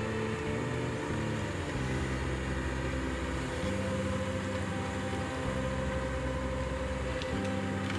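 Diesel engine of a John Deere 850 crawler dozer running steadily as the machine works, a constant low drone that shifts in pitch every couple of seconds.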